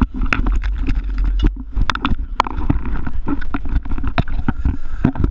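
Low steady rumble of a dive boat's engine, with frequent sharp knocks and clanks of scuba gear being handled on the deck.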